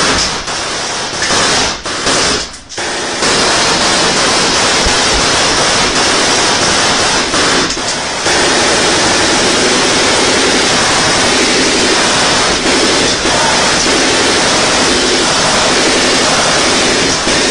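Sustained rapid automatic weapon fire so loud that it overloads the recording into an almost unbroken harsh noise, with a couple of short pauses in the first few seconds.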